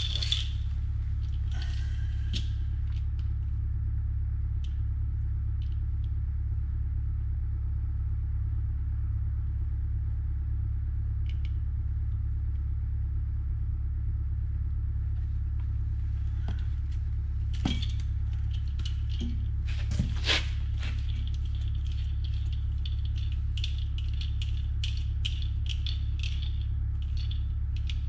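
Steady low hum in a work space. In the second half come scattered clinks and clatter of metal parts and tools being handled, the sharpest few about two-thirds of the way through.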